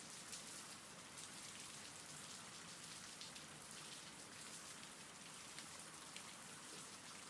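Faint, steady rain: an even hiss of falling rain with light ticks of drops, from a rain-sounds ambience track.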